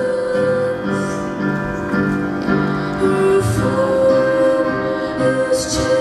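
A boy singing a worship song into a handheld microphone over piano accompaniment, holding long notes with a slight vibrato.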